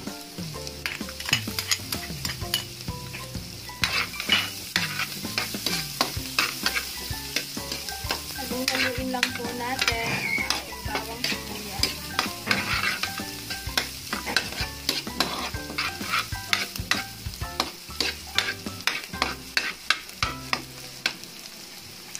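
Diced onion and garlic sizzling in hot oil in a wok while a spatula stirs them, scraping and tapping against the pan in frequent, irregular strokes that thin out near the end.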